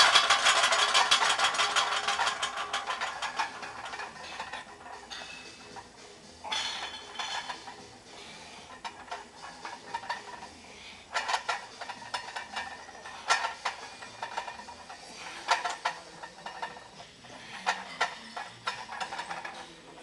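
Metal rattling and clinking of the weight plates on a heavily loaded barbell during squat reps. It is loudest and densest in the first couple of seconds, then comes in separate bursts every few seconds.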